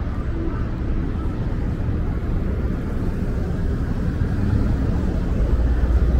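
Low, steady rumble of a Montreal Metro train, growing louder about five seconds in.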